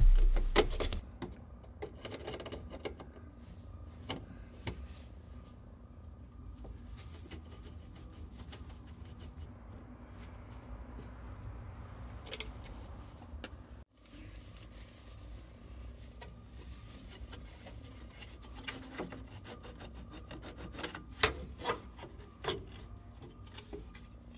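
Hand tools at work on the VW Type 4 engine's pressed-steel tinware and oil filler neck: scattered metallic clicks, scrapes and rubbing, with a louder knock right at the start and a cluster of sharper clicks near the end.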